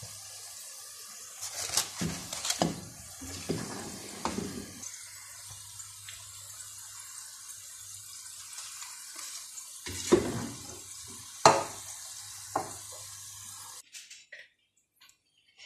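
Potato strips deep-frying in a pan of hot oil, a steady hiss. A metal skimmer scrapes and knocks against the pan in two bursts as fries are lifted out. The frying sound cuts off suddenly near the end.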